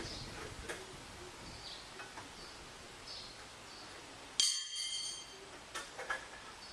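Back-yard outdoor ambience with faint, regularly repeated high chirps. About four seconds in comes a sudden bright, ringing clink that dies away in under a second, followed by a few sharp clicks.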